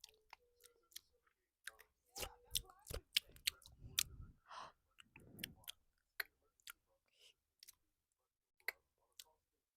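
Close-miked wet mouth clicks and smacks of finger licking, short and irregular, with a couple of soft breathy sounds around the middle.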